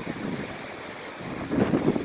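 Strong gusting wind buffeting the microphone, with a harder gust about a second and a half in.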